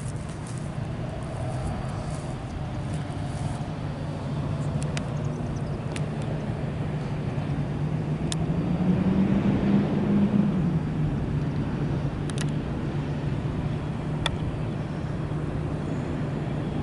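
Steady low vehicle rumble heard at a distance, with a few short sharp clicks and an engine note that swells and rises in pitch a little past the middle.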